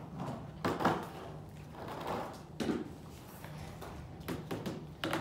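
Metal-legged tabletop stands being lifted and set down on tables: a handful of separate knocks and clatters, one about a second in, one midway and a cluster near the end.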